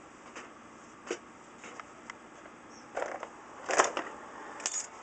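Handling noises as packages are moved: a couple of light knocks, then louder rustling knocks about three seconds in and a shorter one near the end.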